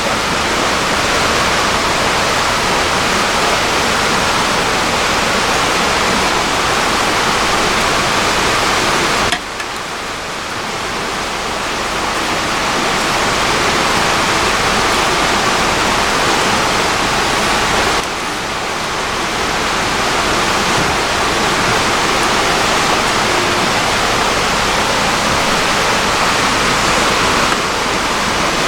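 River water rushing steadily, a loud even hiss with no rhythm; its level and tone shift abruptly three times, about a third of the way in, at about two thirds, and near the end.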